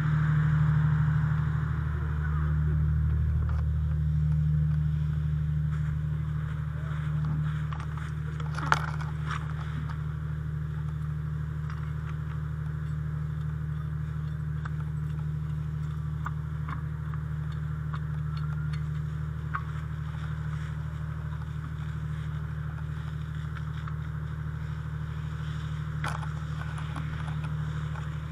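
Fire engine's diesel running steadily with a low drone, under scattered metallic clicks and scrapes from hydrant and hose gear being handled, the sharpest clack about nine seconds in.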